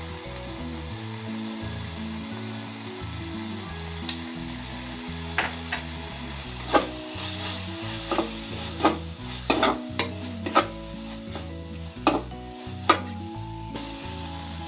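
Steel spatula stirring and scraping corn masala around a stainless steel kadai over a steady sizzle of frying, with sharp scrapes coming repeatedly from about five seconds in.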